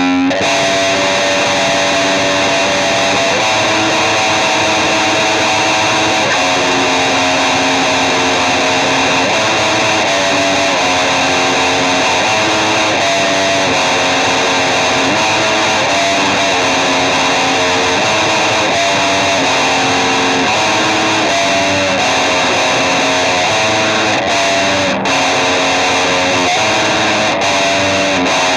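Music: heavily distorted electric guitar through effects, playing sustained chords that change every second or two, dense and steady in loudness.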